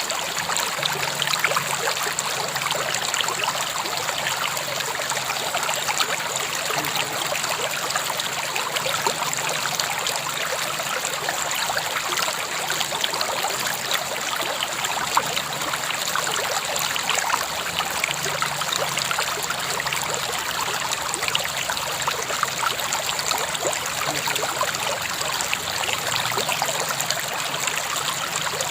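River water flowing steadily over rocks, a continuous rushing and splashing with fine trickling detail.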